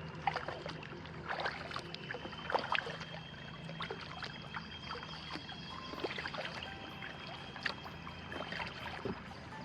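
Kayak paddle dipping into still water, with short splashes and water dripping and trickling off the blades, over a steady thin high tone.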